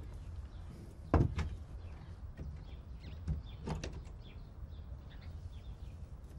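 A case set down or opened with one sharp knock, followed by a few smaller knocks and clicks as its metal-hinged lid is worked open and its contents handled.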